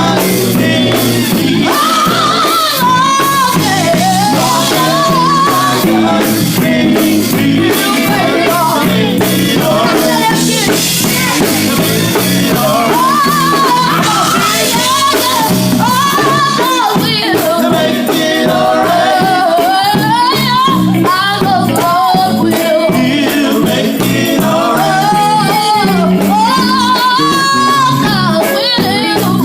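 Gospel singing with band accompaniment: a lead voice sliding up and down through long runs over steady backing instruments.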